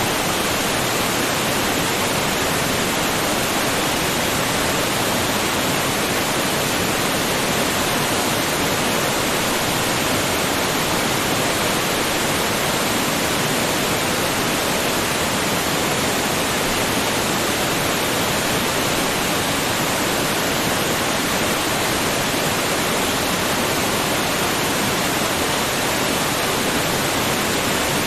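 Waterfall: water pouring down in a steady, unbroken rush.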